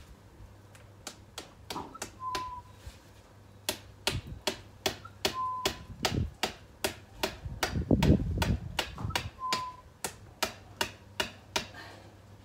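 Sharp knocks repeating about two to three times a second, building to the loudest blows in the middle and then easing: a metal rose support being driven into the ground. Three brief high peeps sound among the blows.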